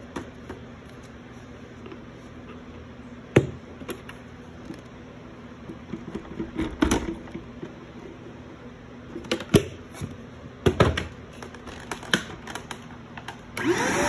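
Sharp plastic clicks and knocks as a vacuum cleaner's clear dust canister is handled and emptied of dirt. Near the end the vacuum motor starts, its whine rising quickly to a steady pitch.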